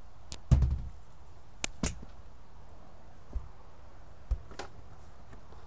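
Hatch lids and seat cushions on a boat deck being handled: a dull thud about half a second in, two sharp clicks about a second later, then a couple of lighter knocks, over a steady faint hiss.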